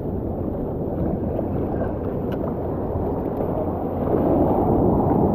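Wind noise on the microphone over surf washing in across the sand, a steady rushing that grows louder about four seconds in.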